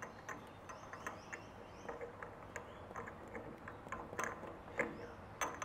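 Faint, irregular small metallic clicks and ticks from the E61 group head's exhaust valve fitting on a Quick Mill Rubino Plus being screwed back in by hand against its replacement spring. The clicks come a little stronger near the end.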